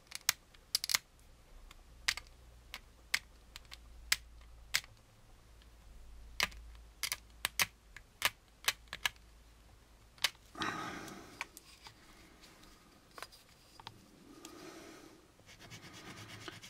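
Irregular sharp clicks and ticks as a small plastic model-kit part is worked by hand with a small tool. From about ten and a half seconds come a few stretches of rubbing as the part is sanded on a sanding stick.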